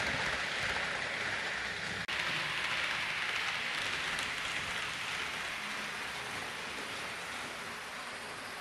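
Hornby OO-gauge Class 390 Pendolino model train running along the track: a steady rushing hiss of wheels on rail and motor. It cuts out for an instant about two seconds in.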